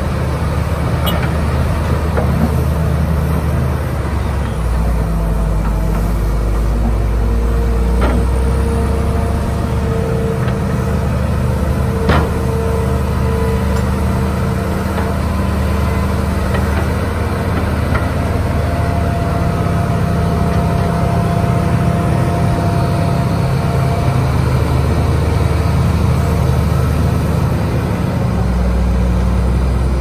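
Heavy diesel engines of a Hitachi crawler excavator and a bulldozer running steadily while the excavator works its bucket in mud, the low rumble swelling briefly a few times. A few sharp metal clanks stand out, the clearest about twelve seconds in.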